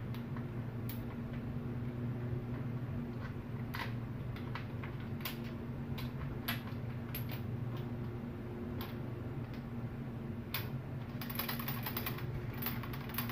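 Scattered clicks and ticks of a plastic ring light being screwed onto its mount and handled, with a quicker run of clicks near the end, over a steady low hum.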